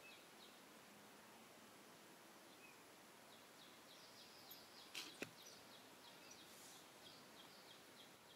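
Quiet ambience with a faint high chirp repeating about four times a second, which stops shortly after the start and comes back midway. About five seconds in there are two sharp clicks close together.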